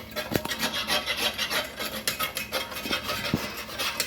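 Fast, repeated scraping strokes of a cooking utensil working against a pan or board, with a couple of sharper knocks.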